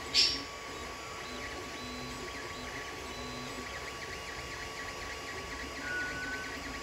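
Creality Ender 3 3D printer running a print: its stepper motors whine in short tones that change pitch as the print head moves, over the steady hum of its cooling fans. About a quarter second in there is one brief, sharp noise, the loudest thing heard.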